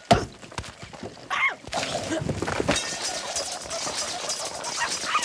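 Cartoon sound effects and wordless character vocalisations, opening with a sharp hit, with a squawk-like cry about a second and a half in.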